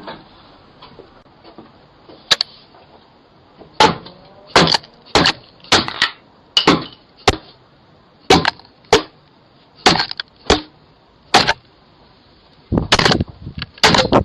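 A Ring video doorbell being smashed: a dozen or more hard, sharp cracking blows at uneven intervals, with a quick flurry of strikes near the end.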